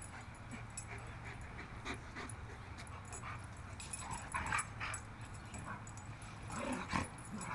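Dogs playing, giving short high cries about four seconds in and again near the end.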